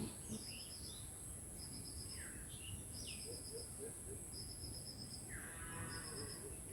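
Village birds chirping: short falling calls and quick trills repeated about once a second, over a steady high-pitched insect drone.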